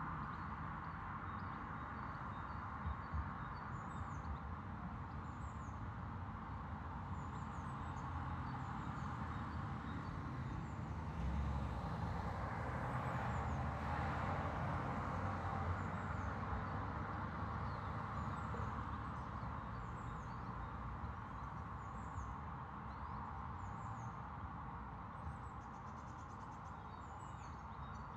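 Outdoor ambience heard indoors through a partly open window: a steady background hum and low traffic rumble, which swells for a few seconds about halfway through as a vehicle passes. Small birds chirp throughout.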